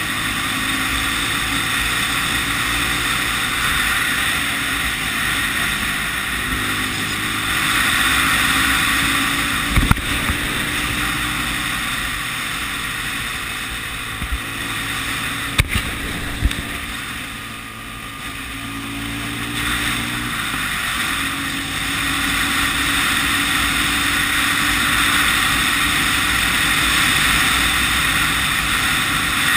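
Honda CB 250 RS motorcycle's single-cylinder four-stroke engine running on the move, its note stepping up and down with the throttle, with wind and road rush over it. Past the middle the engine eases off and the level drops, then it pulls again; a few sharp knocks come shortly before.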